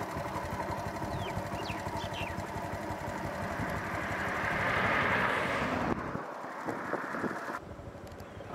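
Motor vehicle engines on a road: a close engine running with a rapid, even throb, and a passing vehicle that swells to its loudest about five seconds in. The sound drops abruptly near six seconds.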